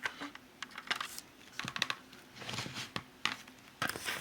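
Handling noise: irregular light clicks and short rustles, like a small plastic object or a phone being moved about in the hands.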